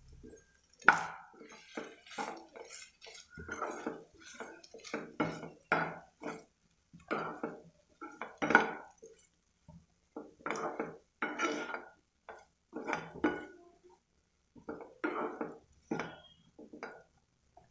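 A spatula scrapes and knocks against a nonstick frying pan as diced boiled potatoes are stirred and tossed with chili powder. The strokes come in quick, irregular runs with a few brief pauses.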